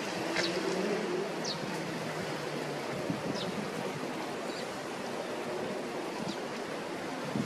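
Iago sparrows giving a few short, faint chirps, about five spread out, over a steady rushing background noise. A faint low hum runs through the first few seconds.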